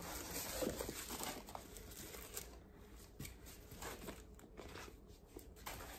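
Paper and plastic wrapping rustling and crinkling irregularly as it is pulled off a new handbag.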